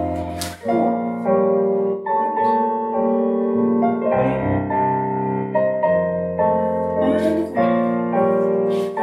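Solo piano music playing a slow classical-style accompaniment, a melody over sustained chords that change about every half second to a second.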